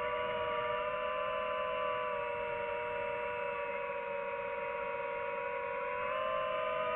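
FPV quadcopter's motors and propellers whining steadily as several close, sustained tones, stepping up in pitch about six seconds in as the throttle rises.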